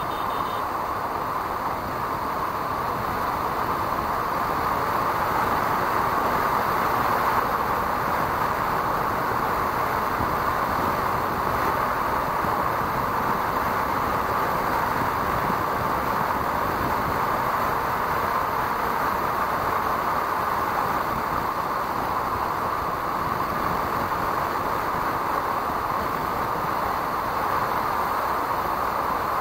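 Steady rush of wind and road noise from a motorcycle cruising at highway speed of about 100 km/h, picked up by an action camera mounted on the bike. No separate engine note stands out.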